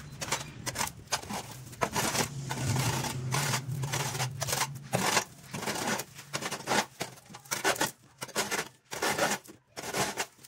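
Rapid, irregular scraping or brushing strokes, one after another, over a low steady hum that stops about halfway through.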